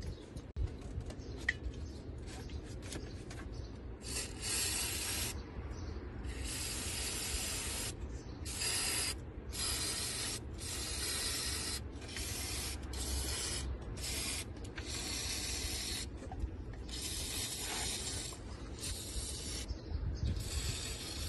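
About ten short hissing bursts of a pressurised spray, each lasting half a second to two seconds, starting about four seconds in, over a steady low rumble.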